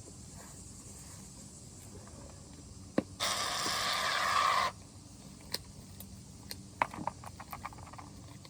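Aerosol can of shaving cream sprayed in one burst of about a second and a half, a few seconds in: a sharp click, then a steady hiss that starts and stops abruptly. A run of small clicks follows near the end.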